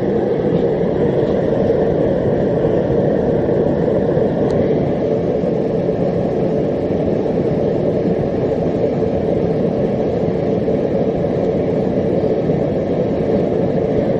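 Home-built gas forge burners, with jets made from drilled-out MIG welding tips, running steadily as a constant loud rushing noise. The gas is fed through a 30-pound regulator set about halfway, roughly 15 psi.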